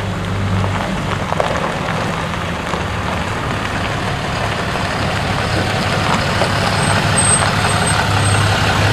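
Cummins 6.7-litre straight-six turbo-diesel of a Ram 4500 heavy-duty truck running steadily at low speed while towing a gooseneck livestock trailer. It grows slightly louder as it draws near.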